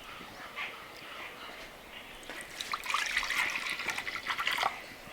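Water pouring and splashing with gurgles for about two seconds, starting about halfway through.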